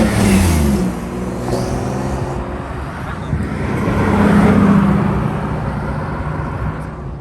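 Car engine and exhaust as cars drive past: one passes right at the start, its pitch dropping as it goes away, and another swells up about four seconds in and fades.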